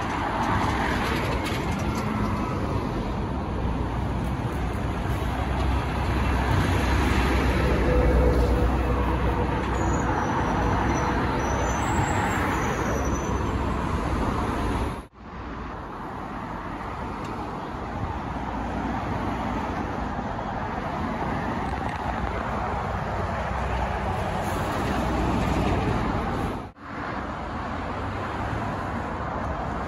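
Lorries and other road traffic driving past on a main road: engine rumble and tyre noise, loudest about a quarter of the way in. The sound cuts out abruptly and briefly twice.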